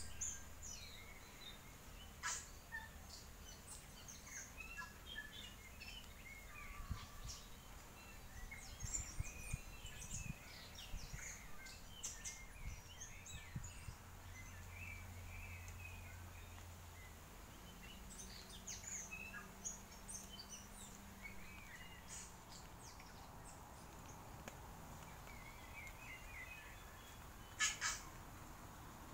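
Several birds chirping and calling, many short calls scattered throughout, with two sharp knocks near the end.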